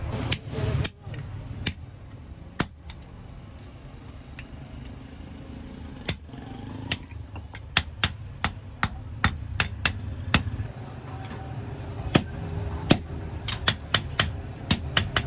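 Blacksmith's hand hammer striking metal, with sharp ringing blows. A few blows come early, then a pause of a few seconds, then steady strikes about one to two a second that quicken near the end. A low steady hum sits underneath.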